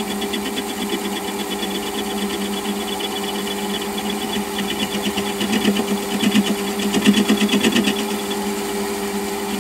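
Small metal lathe running with a steady motor hum while a hand-fed tool takes a light cut on the outside diameter of a cylinder casting. The cut adds a fast, regular ticking that grows louder between about five and eight seconds in.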